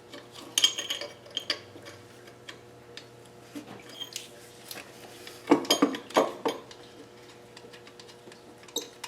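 Hand tools and metal parts clinking and knocking: a wrench working on the turbocharger and exhaust manifold fasteners of a KA24DE engine, with a louder clatter of knocks about two-thirds of the way through.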